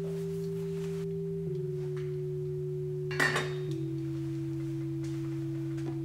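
Soft background music of steady held chords that change every second or two. About three seconds in comes one short clatter, a lid being set on the steel steamer pot.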